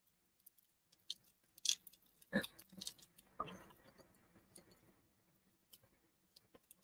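A few faint clicks and crinkly taps from a small plastic slime container being handled, spread over the first half.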